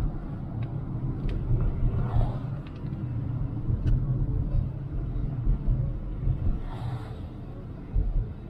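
Steady low road and engine rumble inside a Toyota RAV4's cabin at highway speed, with a few faint clicks in the first few seconds.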